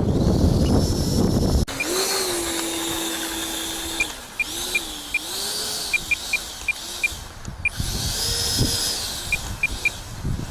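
Wind buffeting the microphone for the first second and a half, cutting off suddenly. Then the 64 mm electric ducted fan of an RC F-15 Eagle jet whines, its pitch rising and falling as the throttle changes, with short ticks scattered through.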